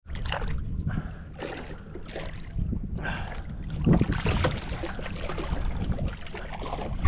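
Wind rumbling on the microphone and water sloshing around a small boat, with a loud splash about four seconds in as a hooked ribbonfish thrashes at the surface.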